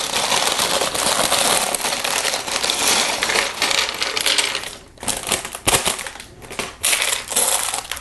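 Perforated plastic bag of Lego pieces crinkling as it is handled and opened, then small plastic pieces clattering and clicking in quick, separate hits from about five seconds in.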